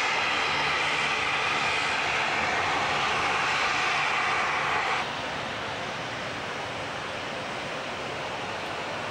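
Fokker 50 turboprop engines running as the aircraft taxis close by: a steady propeller hum with a loud turbine whine. About halfway through the sound cuts off abruptly and a quieter, even rushing noise takes over.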